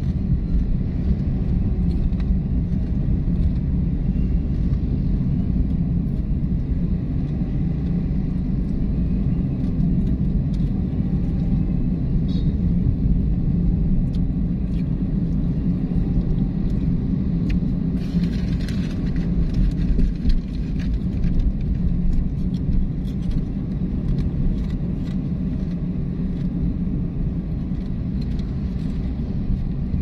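Car driving along a road: a steady low rumble of engine and tyre noise, with a brief louder rush about eighteen seconds in.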